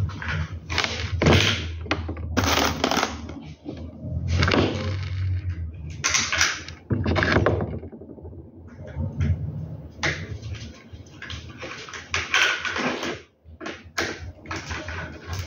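Plastic parts of a vertical-blind headrail clicking and rattling in irregular bursts as the rail, its carriers and rod are handled and fitted together by hand. A low steady hum runs underneath, fading about halfway.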